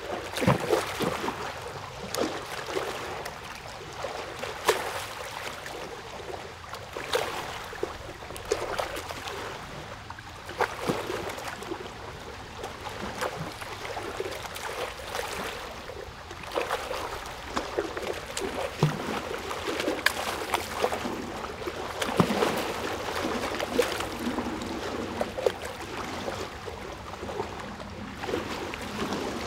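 Running water of a stream: a steady babbling trickle with many small splashes and gurgles.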